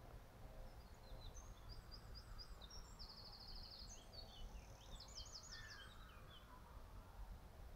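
A small songbird singing a quick, varied phrase of high chirps and rapid trills, faint against a low steady background rumble.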